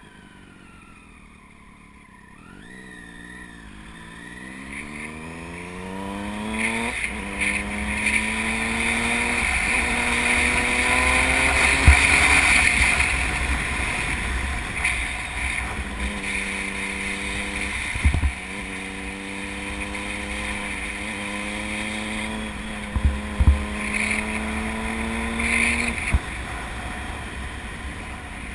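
A vehicle engine accelerating, its pitch climbing, dropping back sharply about seven and sixteen seconds in and climbing again, as with gear changes. Under it, wind rumbles and buffets the microphone with occasional thumps, giving poor, noisy sound.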